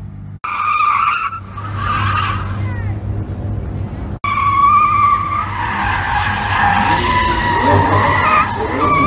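A car's tyres screeching in a smoky burnout or spin, a high wavering squeal over the running engine, cut off briefly twice.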